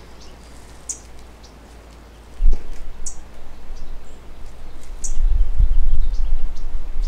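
Small birds chirping: short, high chirps about every two seconds over a quiet background. A thump about two and a half seconds in, then from about five seconds on a loud, uneven low rumble on the microphone.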